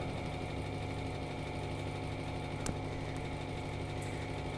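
Hydraulic pump unit of a compression testing machine running with a steady hum as it slowly loads a timber specimen. A single faint click comes a little past halfway.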